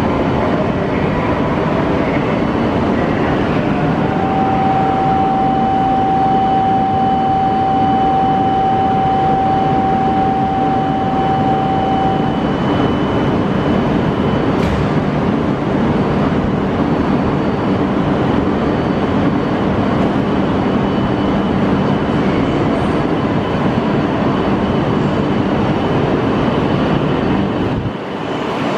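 E5 series Shinkansen standing at a station platform amid a steady, loud hum of train and station noise. A steady single-pitched electronic tone sounds for about eight seconds, and the train starts to pull out near the end.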